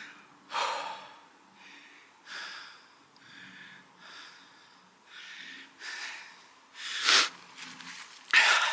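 A person breathing heavily, short breaths in and out about once a second, with two louder ones near the end.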